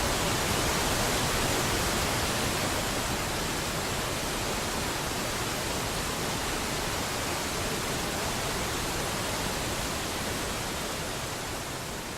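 Steady rushing of falling water, an even hiss with no distinct splashes, slowly fading toward the end.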